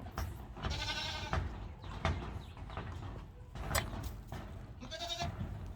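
Nigerian dwarf baby goats bleating, two wavering bleats, one about a second in and one near the end, amid rustling and light knocks from the kids jostling close by.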